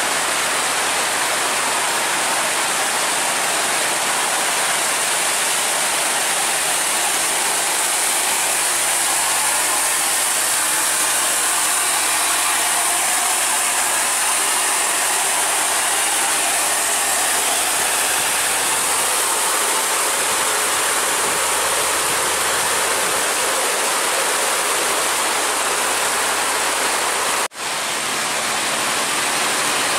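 Heavy, steady rain falling, with a heavy truck's diesel engine working under load as it climbs past. The sound breaks off briefly near the end.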